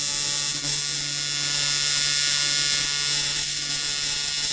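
AC TIG welding arc on aluminium, a steady electrical buzzing hum as a bracket is welded onto an aluminium radiator.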